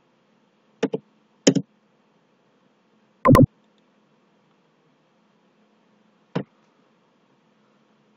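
Clicks of a computer mouse and keyboard keys in a few separate strokes: a quick pair about a second in, another pair just after, a longer, louder cluster about three seconds in, and a single click near the end.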